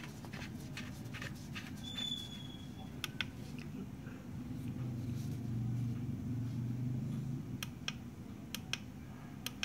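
Scattered small clicks and taps of a plastic LED camping bulb being handled and its battery cover closed, a cluster in the first two seconds and a few more later, over a low steady hum.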